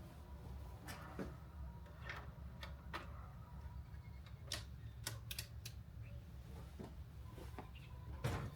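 Irregular light clicks and taps, like objects being handled and set down, over a steady low hum; a louder pair of knocks comes near the end.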